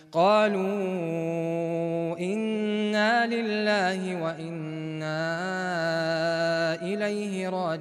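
A man's voice chanting Qur'an recitation in a slow melodic style, drawing out long held notes with ornamented turns and taking brief breaths between phrases.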